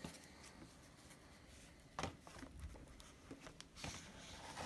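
Faint handling noise of a sheathed set of throwing knives: one light knock about two seconds in, a few soft ticks, and quiet rustling near the end.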